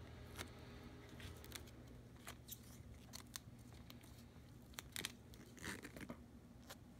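Faint handling noise of plastic smart film and electrical tape: scattered small clicks and crinkles, with a louder cluster of crinkling a little after five seconds in.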